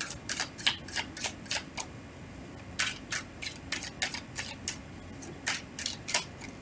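A tarot deck shuffled overhand by hand: a quick run of light card slaps, about three or four a second, with a short pause about two seconds in before the strokes start again.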